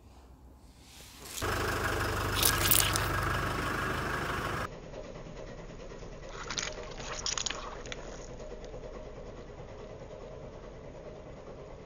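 Car engine running, loud from about a second and a half in, then cut off abruptly about three seconds later. A quieter steady engine sound follows as the car's tyre rolls over the rubbery toys, with a few short crackles in the middle.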